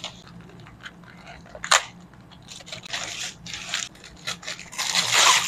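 Plastic packaging crinkling and rustling as a courier mailer is handled and a clear plastic sleeve is pulled out of it. There is a short crackle just before two seconds in, and the loudest rustling comes near the end.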